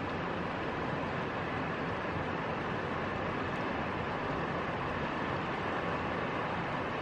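Steady rushing of river water flowing below a footbridge, an even noise that does not change.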